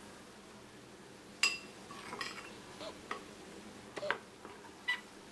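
A few light, scattered clinks and taps of a spoon against a glass bowl as corn flour and rice flour are mixed together, some with a short glassy ring.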